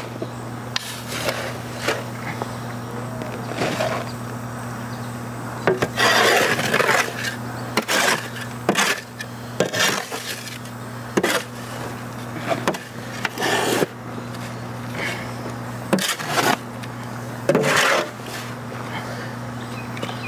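Shovel scraping into loose soil and tipping it onto a wooden pallet frame, in irregular strokes every second or two, over a steady low hum.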